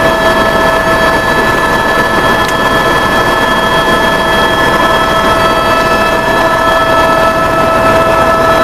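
Aircraft engines running at full power during takeoff: a loud, steady rush with several steady whining tones held over it.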